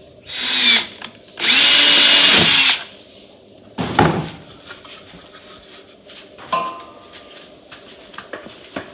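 Cordless drill running in two trigger pulls: a short burst of about half a second, then a steady run of about a second and a half. About four seconds in there is a brief knock.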